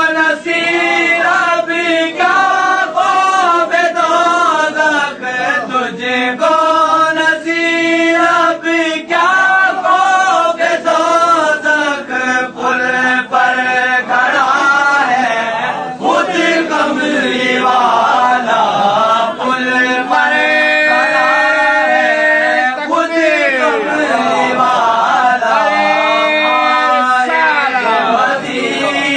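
Unaccompanied devotional chanting of a naat, a sung praise of the Prophet, in a male voice. The voice is melodic and runs on without clear words. In the second half it turns to long held notes and sweeping slides in pitch.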